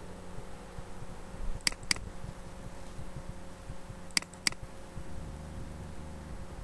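Computer mouse double-clicked twice, two pairs of quick sharp clicks about two and a half seconds apart, over a steady low hum.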